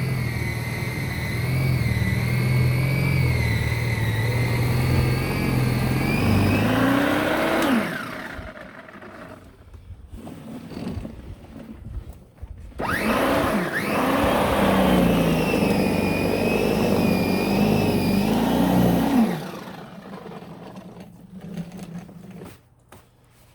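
Snowblower running, then winding down about seven seconds in; it starts up again a few seconds later, runs for about six seconds, and winds down again.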